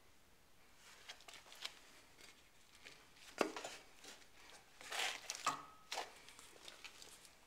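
Faint handling and movement noises: scattered clicks, light knocks and rustling, with a sharper knock about three and a half seconds in and a brief squeak a couple of seconds later.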